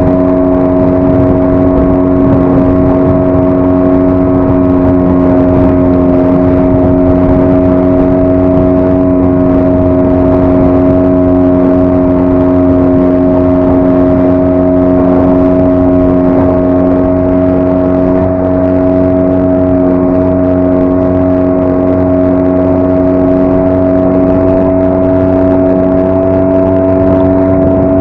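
5 hp outboard motor running steadily at constant throttle, pushing an inflatable boat, its pitch holding even throughout.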